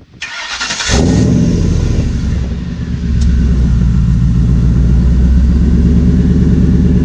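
Pickup truck's V8 engine firing up in the first second, then idling steadily and loudly.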